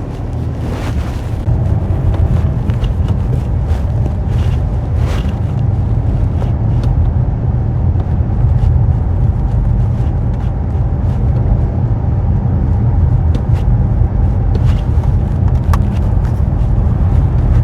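Peugeot 5008 being driven on a test drive: steady low engine and road rumble, which grows louder about two seconds in.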